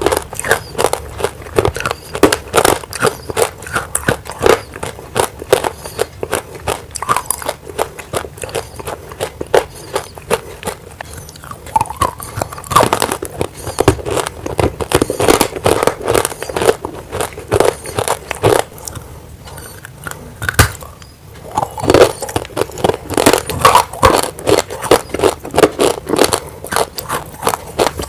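Grey baked clay crunching as it is bitten and chewed close to the microphone: dense, crisp crackles and snaps with a short quieter pause about two-thirds of the way through.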